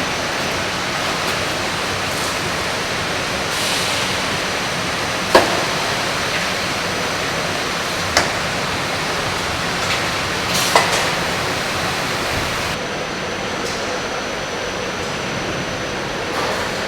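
Steady rushing noise of an apple packhouse grading line running, with a few sharp knocks.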